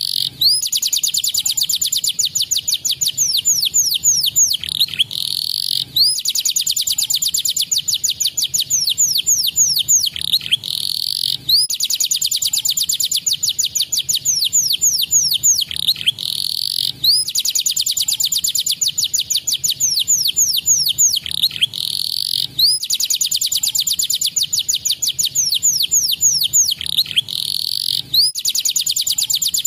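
Domestic canary singing in long, fast phrases of rapid high trills and quick falling notes. Each phrase is broken by a short pause and a new one starts every five to six seconds.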